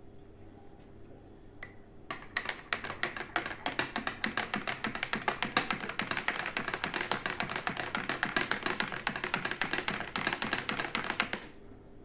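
A metal spoon stirring briskly in a crystal glass, clinking quickly and repeatedly against the glass, several clinks a second. The clinking starts about two seconds in and stops shortly before the end.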